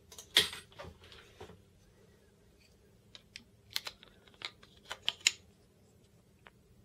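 Clicks and knocks of a small plastic tripod head and its wooden camera plate being handled and turned in the hands. A loud knock comes about half a second in, with a couple more taps, then a scatter of sharp clicks between about three and five seconds in.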